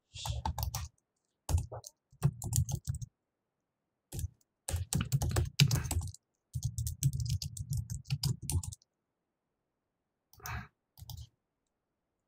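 Typing on a computer keyboard in bursts of rapid keystrokes, entering router configuration commands, stopping about nine seconds in; two brief bursts of clicks follow near the end.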